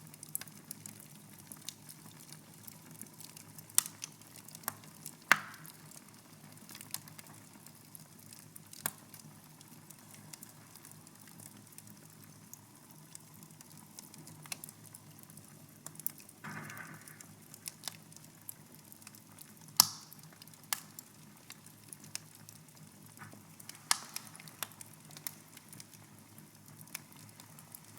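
Fire burning in a fireplace, crackling with irregular sharp pops, a few much louder than the rest, and a brief hiss about sixteen seconds in, over a faint steady low hum.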